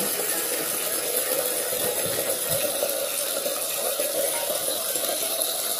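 A stream of water from a hose pouring steadily into a plastic jar already partly full of liquid, splashing into it as the jar fills.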